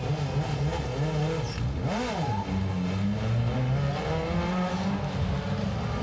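Stunt truck's engine revving: a quick rise and fall in pitch about two seconds in, then running at a steady, slightly rising pitch as the truck gets under way.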